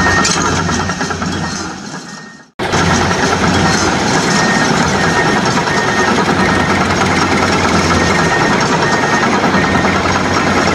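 Heavy engine sound running steadily, with a strong low rumble and a faint high tone coming and going. It fades out about two seconds in, drops to silence for a moment, then starts again abruptly at full level.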